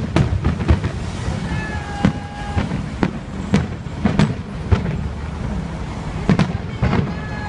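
Fireworks display: aerial shells bursting in a string of sharp bangs at irregular intervals, about two a second, over a steady low rumble.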